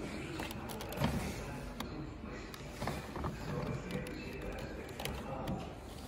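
Shop-floor ambience: faint background music and distant voices, with a few sharp clicks, the loudest about a second in.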